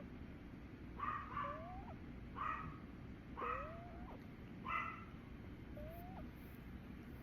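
A sleeping pet snoring: each breath brings a short squeaky whistle that rises in pitch and a breathy snort, repeating about every second and a bit. The snorts stop about five seconds in, leaving only the faint whistles.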